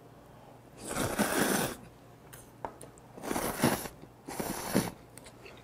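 A man slurping saucy instant stir-fried noodles off chopsticks, three noisy slurps of about a second or less each.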